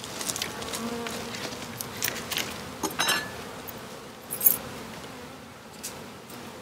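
Honeybees buzzing around open hives, with one flying close past about a second in. A few clicks and knocks run through it, the loudest a sharp clack about four and a half seconds in.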